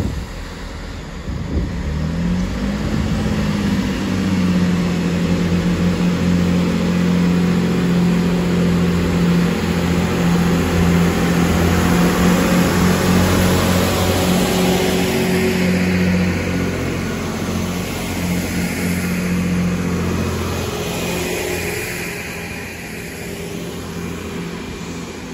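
Diesel engines of a Class 166 Turbo diesel multiple unit revving up about two seconds in as the train takes power, then running steadily under load, dropping back to a lower, quieter drone near the end.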